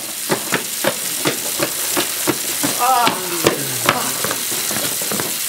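Heavy rain pouring down: a dense, steady hiss with many sharp clicks of drops striking close by. There is a short vocal cry about three seconds in.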